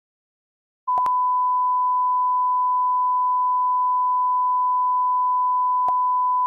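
A steady single-pitch electronic tone at about 1 kHz, the standard broadcast test tone. It starts abruptly about a second in and holds for about five and a half seconds, with faint clicks at its start and shortly before it ends.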